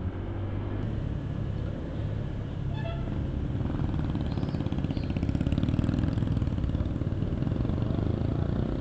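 Motorcycle engine running while being ridden, its exhaust pulses steady and growing somewhat louder a few seconds in.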